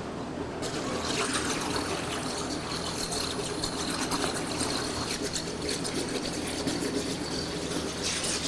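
Submerged plasma cutting torch on a CNC water-table cutter: gas bubbling through the water, then under a second in the arc fires as a loud hiss and crackle with a steady high whine, cutting off just before the end. A steady machine hum runs underneath.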